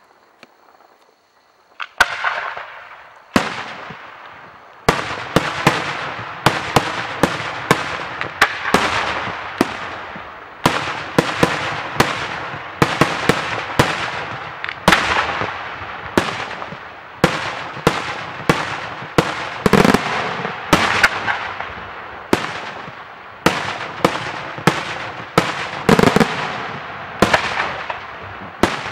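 Daytime aerial fireworks shells bursting: two single sharp bangs about two and three seconds in, then a rapid string of bangs at about two a second, each echoing away.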